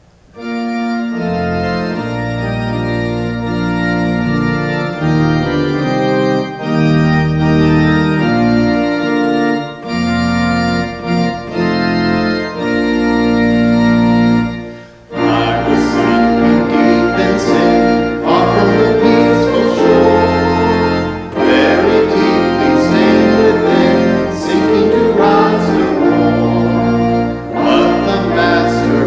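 Church organ playing sustained chords. About halfway through, singing voices with vibrato join in over the organ.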